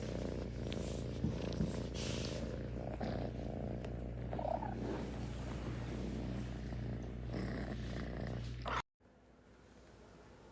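A cat purring steadily close up, then cut off abruptly near the end.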